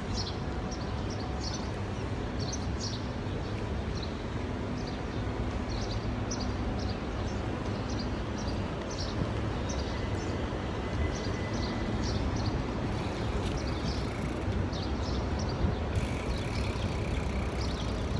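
Steady low rumble of street traffic, with birds chirping in short repeated calls over it.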